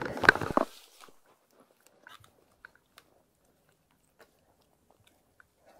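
Close crunchy rustling and crackling lasting under a second at the start, as a caught pike is handled and lowered into long grass, then a few faint clicks.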